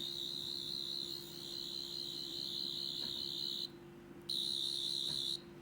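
An 11th Doctor sonic screwdriver replica giving its high, slightly warbling electronic whine. The whine cuts out a little over halfway through, then comes back for about another second.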